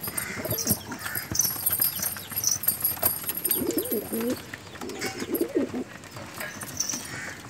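Gola domestic pigeons cooing: two warbling coos about a second apart in the middle of the stretch, over scattered light taps and scuffling.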